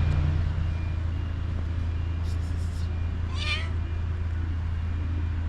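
A domestic cat meows once, a short call that bends up and down in pitch about three and a half seconds in. A few faint short hissy sounds come just before it, all over a steady low hum.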